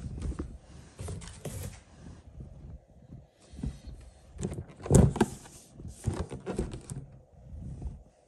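Cardboard packaging being handled: irregular rubbing, scraping and rustling of a toy's printed box and its cardboard shipping carton, with a louder bump about five seconds in.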